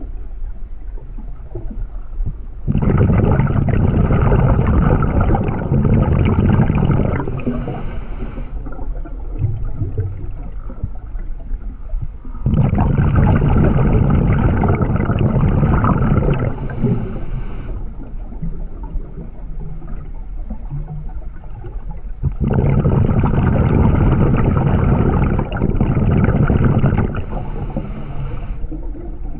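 Scuba diver breathing through a regulator underwater. Three long rushes of exhaled bubbles, each lasting about four seconds, are each followed by a short hiss of inhaling, in a slow cycle of about ten seconds.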